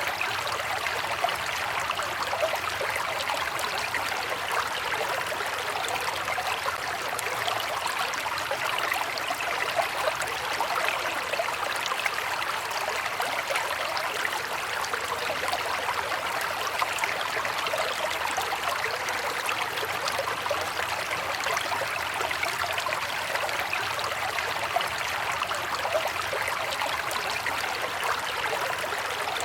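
River water flowing steadily: a constant rushing and babbling of a stream over rocks, with small splashes flickering through it.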